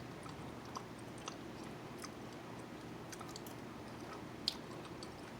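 A person chewing food close to the microphone: soft mouth sounds with scattered small clicks, one sharper click near the end.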